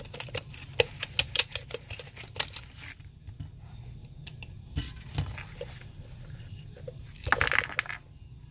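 Hands pulling the clear plastic cover off an LED corn bulb: a quick run of plastic clicks and taps in the first three seconds, then scattered knocks and a short scraping rustle near the end.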